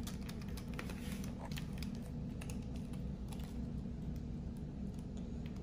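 LEGO WeDo 2.0 plastic pieces clicking and rattling as a part is worked and pressed into place, a string of small irregular clicks over a steady low background hum.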